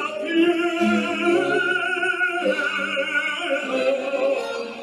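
Operatic singing: one voice holding notes with wide vibrato over instrumental accompaniment, with a brief break in the line about halfway through.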